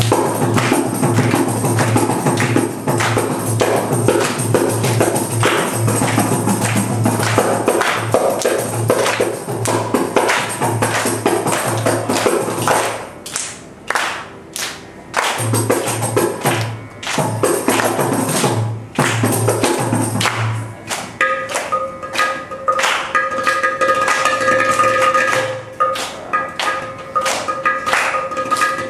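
Carnatic percussion ensemble of mridangam, kanjira, ghatam and morsing (jaw harp) playing a fast tani avartanam of rapid, interlocking drum and pot strokes. The strokes thin out briefly near the middle, and in the last third a steady ringing tone sounds beneath them.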